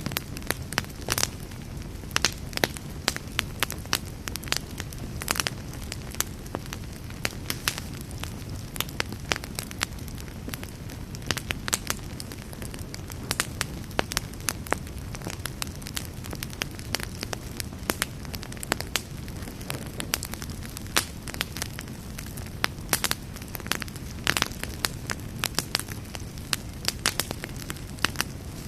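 Campfire burning with a steady low rush and hiss, crackling throughout with irregular sharp pops, a few of them louder.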